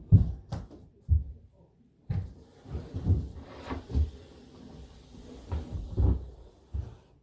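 A series of low thumps and knocks as modular couch sections are shifted and set in place, with rustling of handling between about two and four seconds in.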